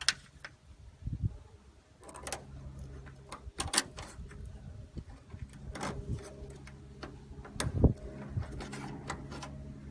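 Scattered light clicks and knocks of hands handling the hood vent hardware and its wire, with the loudest knock near the end, over a low steady hum.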